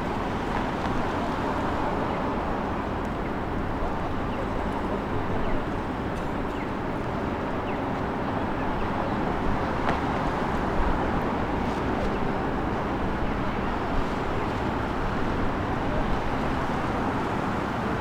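Steady ambient noise of a busy transit station: a dense, even rumble and hiss, like traffic or running machinery, with a few faint clicks and knocks scattered through it.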